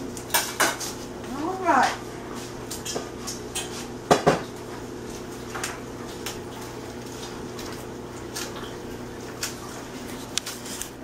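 Kitchen clatter of dishes and utensils being handled: scattered clinks and knocks, with two louder knocks about four seconds in, over a steady low hum.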